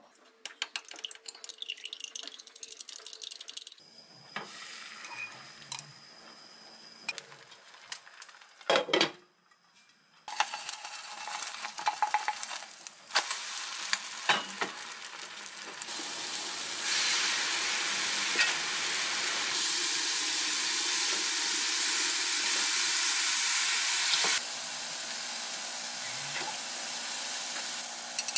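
Eggs being beaten in a glass mug, a rapid clatter of the utensil against the glass for the first few seconds. Then beaten egg sizzling as it fries in a nonstick pan, with a spatula scraping and tapping; the sizzle is loudest and steadiest in the second half, then drops to a softer hiss near the end.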